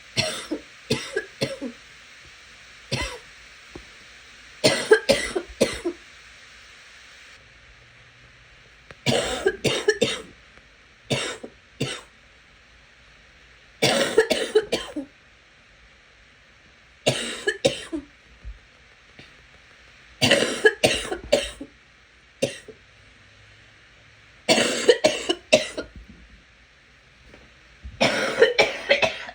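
A sick person's wet cough, coming in fits of two to four coughs every few seconds.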